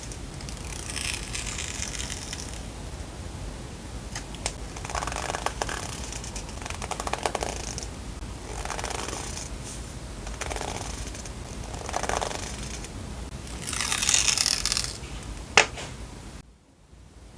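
Paper and packaging handled by hand: short rustling, sliding swishes every second or two, some crinkly, with a sharp click near the end.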